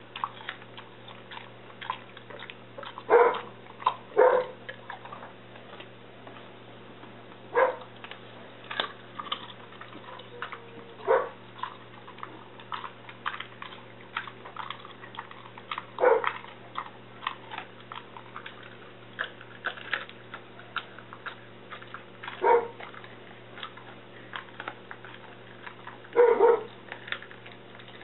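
A dog chewing and crunching raw pork rib bones, a busy run of small clicks and cracks. Over it a dog barks about seven times, single short barks several seconds apart.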